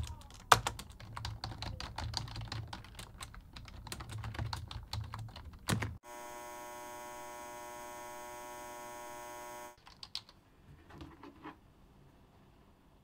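Fast typing on a computer keyboard, keys clacking in quick runs for about six seconds. A steady electrical buzz follows for about four seconds and cuts off suddenly, then a few soft clicks near the end.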